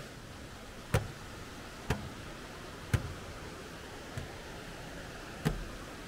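Footsteps clanking on the steel chequer-plate treads of a metal footbridge, five steps about a second apart, the fourth fainter, over the steady rush of the stream below.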